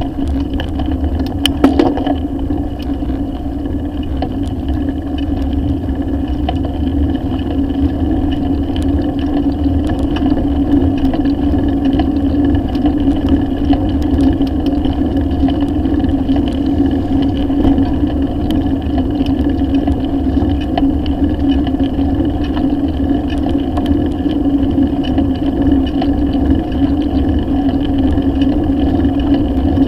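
Steady wind and tyre rumble picked up by a handlebar-mounted camera on a moving bicycle, with a constant hum; a couple of sharp clicks about two seconds in.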